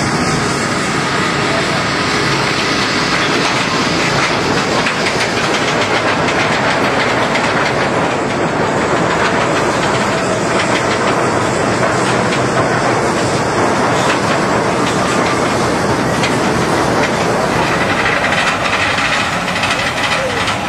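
Steel dive-coaster trains running on the track: a loud, steady rush of wheel noise with fast rattling clicks through the middle stretch.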